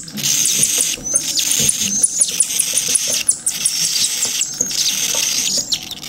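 Cockatiel chick giving high, rasping food-begging calls while being syringe-fed, in stretches of about a second with short breaks between them.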